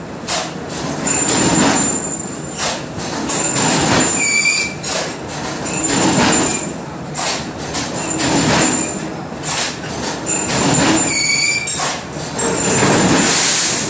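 Pipe bending machine working a metal tube round its die: a loud, rough mechanical grinding that swells and fades about every two seconds, with thin high metallic squeals, two of them sharper, about a third and four fifths of the way through.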